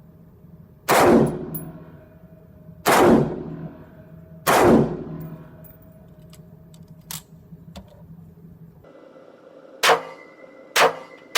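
AR-15 rifle (Black Rain Ordnance Fallout 15, 5.56) fired in single shots: three loud shots about two seconds apart, each with an echoing tail. After a change in the background, two more shots come about a second apart, with a third starting at the very end.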